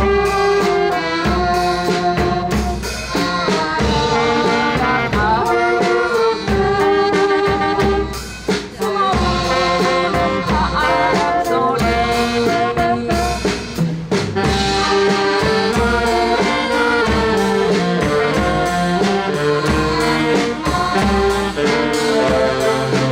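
Wind band playing a melodic tune live, with brass and saxophones carrying the melody over a steady beat.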